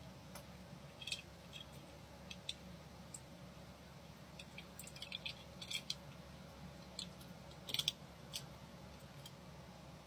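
Small metallic clicks and ticks of a metal-link watch bracelet being worked in a link-removal tool, coming irregularly, singly and in short clusters, the loudest cluster near the end. A low steady hum runs underneath.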